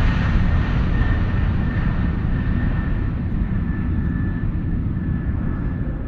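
Steady engine and airflow noise of a Flair Airlines jet airliner heard from inside the cabin, deepest in the low range, with a faint steady high whine coming in about a second in; the noise eases slightly toward the end.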